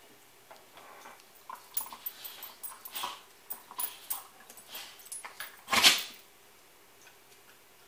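Dogs at play, giving a run of short whines and yips, then one much louder vocal outburst about six seconds in.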